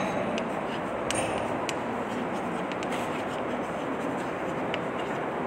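Steady background hiss with a few faint, scattered clicks.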